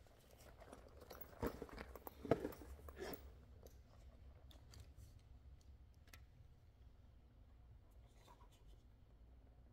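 Faint handling noise from a leather sling bag and its strap being lifted and turned: a few soft knocks and rustles in the first three seconds, then only light ticks.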